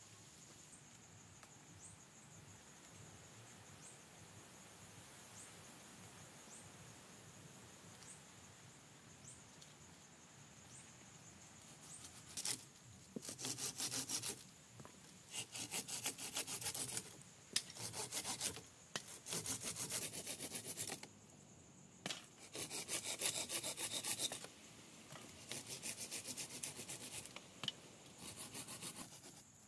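A hand tool rasping on wood in about eight bouts of quick back-and-forth strokes, each bout lasting a second or two. The bouts begin about twelve seconds in, after a stretch of faint steady background with a thin high tone.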